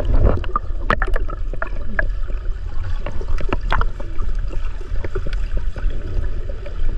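Water splashing and sloshing, with many short scattered splashes over a steady low rumble.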